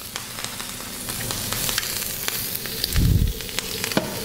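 Clarified butter sizzling and crackling as it melts in a very hot frying pan. A dull low thump sounds about three seconds in.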